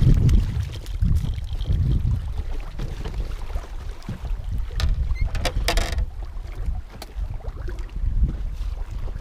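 Wind buffeting the microphone on an open fishing boat, a loud, uneven low rumble, with a few light clicks and a short rustling burst about six seconds in.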